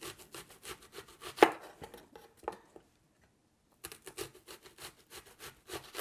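Chef's knife sawing slices off a red onion on a wooden cutting board: rapid cutting strokes with a sharper knock about a second and a half in, a pause of about a second near the middle, then more strokes.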